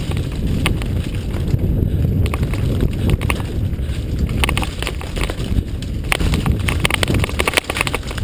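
Mountain bike riding fast down a rough trail: wind buffeting the microphone and tyres rumbling over dirt and rock, with clusters of rattling clicks as the bike jolts over bumps.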